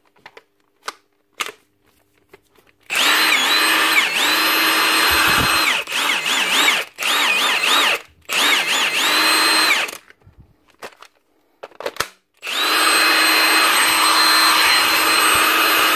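Milwaukee M18 cordless impact wrench free-spinning with no load, started after a few handling clicks: one long run, several short bursts with the motor speed wavering, then a steady run near the end. The test-runs show that the worn battery contact pin, built up with a soldered nickel-strip wedge, is making contact again.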